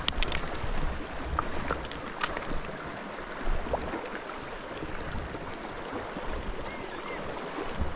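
Fast, shallow mountain river rushing over a stony bed, with scattered splashes and clicks of a person wading across the current in waders.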